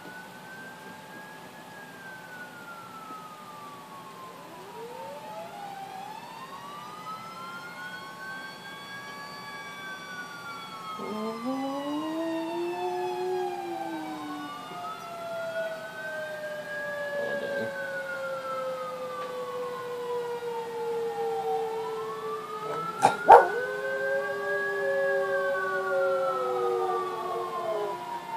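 Emergency vehicle sirens wailing in slow rises and falls, at least two overlapping and growing louder. A small long-haired dog howls along with them partway through and again near the end. A single sharp knock about two-thirds of the way through is the loudest sound.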